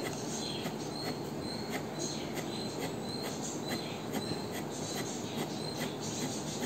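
Fine-tip pen scratching quick short strokes on paper as it draws rows of small leaf lines, a rhythmic scratching of about two to three strokes a second with a faint high squeak, over a steady low hum.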